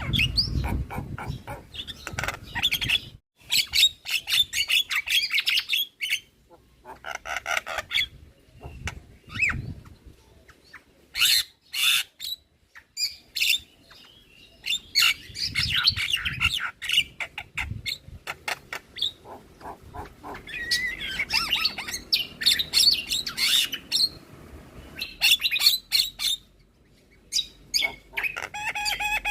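Javan myna (jalak kebo) song: bursts of rapid, harsh chattering calls and squawks, each a second or two long, broken by short pauses.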